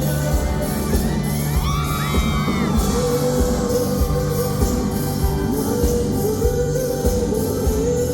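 Live pop-rock band playing with a steady beat in a large hall. About a second in, the audience's high screams rise over the music, and from about three seconds a male voice sings the melody.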